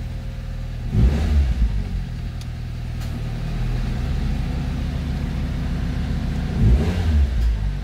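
Nissan March four-cylinder engine idling rough, heard inside the cabin, with two brief louder stumbles in its note about a second in and near the end. It is the shaking idle that the owner puts down to worn spark plugs and ignition wires.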